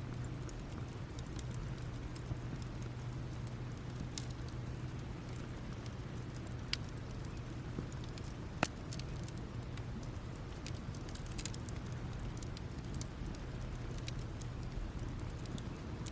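Campfire burning down to glowing embers, giving off scattered sharp crackles and pops at irregular intervals, one louder pop just past halfway, over a low steady hum.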